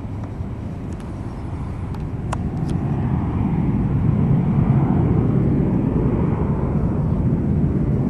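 Hawker Siddeley Nimrod's four Rolls-Royce Spey turbofans: a deep jet rumble as the aircraft flies past, growing louder from about three seconds in and then holding steady.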